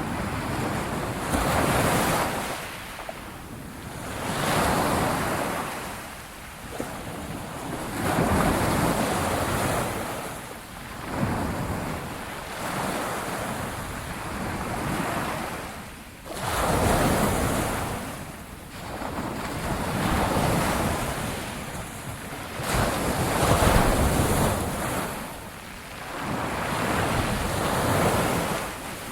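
Ocean waves breaking and washing in, swelling and ebbing in a surge every three to four seconds.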